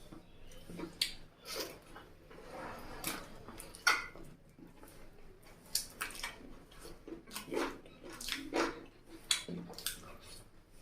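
Wet chewing and lip-smacking of someone eating chicken curry and rice, a string of irregular short smacks and clicks.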